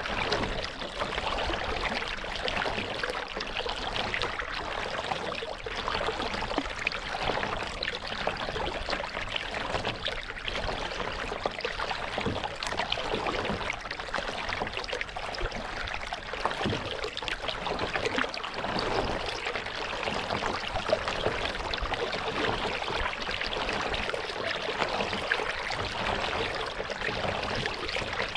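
Lake water splashing and trickling close by around a paddled kayak, a continuous busy patter of small splashes with no clear stroke rhythm.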